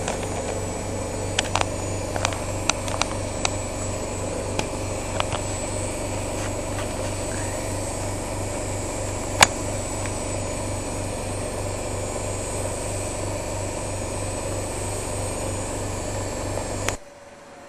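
Privileg Sensation 9415 washing machine running steadily, with an evenly pulsing low hum and scattered light clicks, one louder click about halfway. The running sound cuts off sharply near the end, leaving a faint hum.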